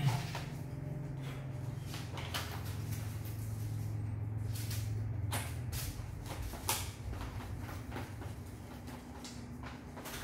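Plastic cassette tape cases clicking and clacking as they are handled and sorted, several separate sharp knocks over a steady low hum.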